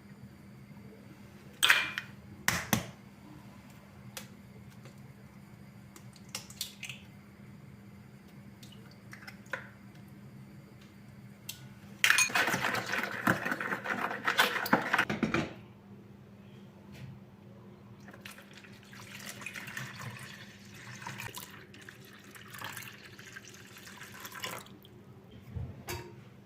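Water from a kitchen sink tap running for about three seconds midway, after two sharp knocks, followed by quieter washing and handling sounds. A faint steady hum sits underneath.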